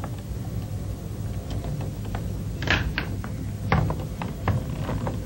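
A desk telephone being handled: a few light clicks and knocks, two of them louder, over a steady low hum.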